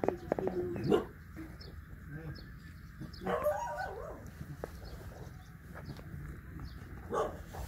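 Puppies yipping in short calls: a few about a second in, a longer run of calls around three to four seconds in, and one more near the end.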